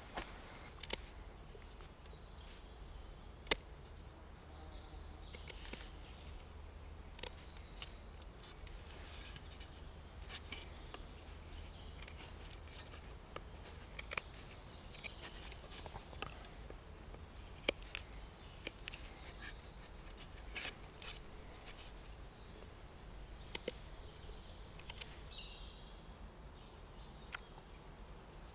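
A knife blade carving a wooden bow-drill fire board: sparse, faint clicks and short cuts as the notch is cut into the wood, with two louder snaps, one a little after three seconds in and one about halfway through.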